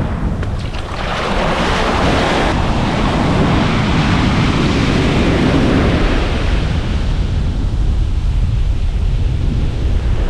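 Ocean surf breaking and washing up the beach, with strong wind buffeting the microphone as a steady low rumble. A wave's wash swells about a second in and dies away after about seven seconds.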